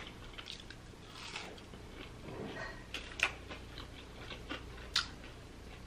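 Quiet chewing of crunchy coconut-breaded fried shrimp: scattered soft crunches and mouth clicks, with two sharper crunches a little after three seconds and at about five seconds.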